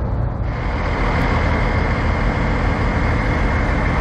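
Diesel semi-truck engines idling with a steady low rumble. About half a second in, a steady high whine joins them.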